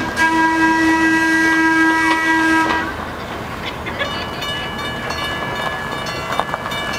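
A steady whistle-type blast, a held note with a chord of overtones, that stops about three seconds in. About a second later a second, higher and quieter blast starts and holds steadily.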